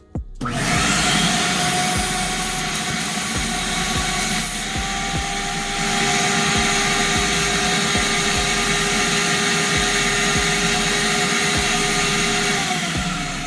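Vacuum cleaner switched on about half a second in and running loudly and steadily, a dense rushing hiss with a steady motor whine.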